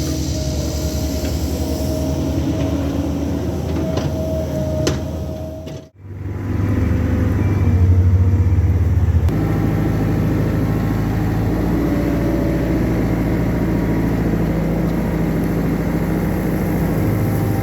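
Cat 308 mini excavator's diesel engine running steadily while digging, with a few sharp knocks in the first few seconds. The sound cuts out abruptly about six seconds in, then the engine returns louder, its note shifting a few seconds later.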